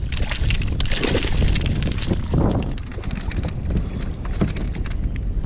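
Water splashing as a hooked fish thrashes at the surface and is scooped into a landing net beside a kayak, busiest in the first two seconds, then a brief rush of water draining from the net as it is lifted. Wind rumbles on the microphone.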